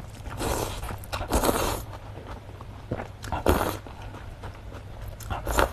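A person slurping noodles from a bowl of soup, close to the microphone: four short hissing slurps, the first two about a second apart, then one about three and a half seconds in and one near the end.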